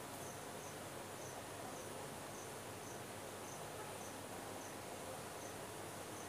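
A cricket chirping faintly, a short high chirp a little under twice a second, over a steady background hiss.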